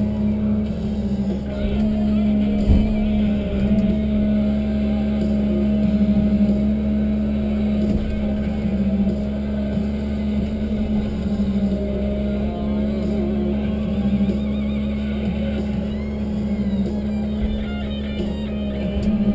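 Tigercat 1075B forwarder's engine and hydraulics droning steadily inside the cab as the loader crane works, the pitch stepping slightly up and down a few times. A single knock comes about three seconds in.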